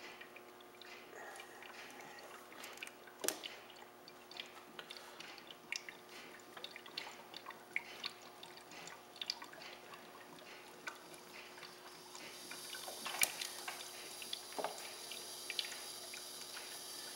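HHO electrolysis rig running: faint, irregular drip-like clicks and ticks over a steady low hiss, typical of gas bubbling through the liquid of the cell. About twelve seconds in a higher hiss grows louder, with one sharp click just after.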